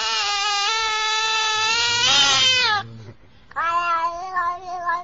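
Domestic cat yowling: one long drawn-out call that drops in pitch and stops a little under three seconds in, then a second, shorter call after a brief pause.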